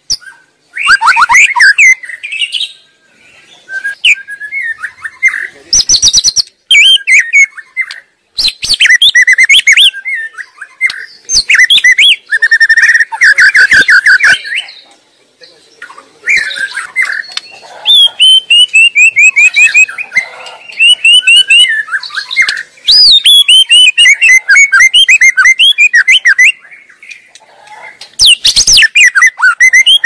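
White-rumped shama singing a loud, varied song: whistled phrases and fast runs of repeated notes, broken by short pauses.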